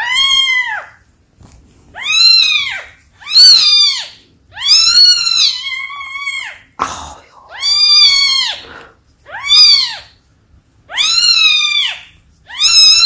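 A constipated newborn kitten crying out loudly again and again, about eight high, arching cries of roughly a second each with short pauses between, one drawn out longer near the middle, while its rear is rubbed with a tissue to make it pass stool.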